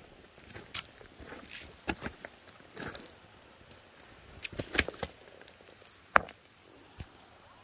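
Footsteps crunching on a dry, rocky dirt trail, then a hand pulling a loose stone from among other rocks, with a sharp clack of rock on rock about six seconds in and a lighter one a second later.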